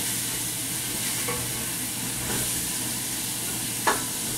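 Ground lamb sizzling as it browns in a stainless steel stockpot, stirred and broken up with a wooden spoon. A single sharp knock near the end.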